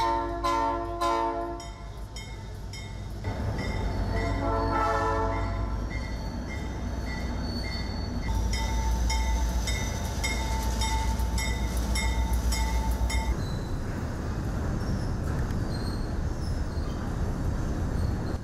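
Diesel freight locomotive sounding its multi-tone horn, once at the start and again a few seconds in, then rumbling past with its wagons, the wheels clacking rhythmically over rail joints for several seconds before the rumble fades.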